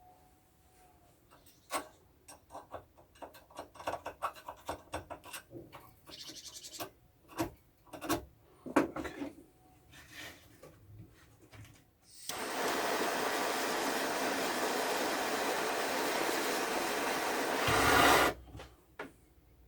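Small parts and tools clicking and tapping in quick irregular strokes, then about twelve seconds in a gas blowtorch starts a loud steady hiss that lasts about six seconds, heating the outboard's fuel tap to take solder for the filter, swelling briefly before it cuts off sharply.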